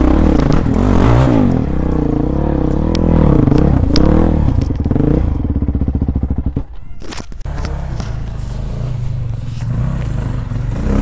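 Dirt bike engine revving up and down as the bike climbs a steep rock ledge. About five seconds in the engine sound drops to a lower, steadier running, with a brief clatter a couple of seconds later.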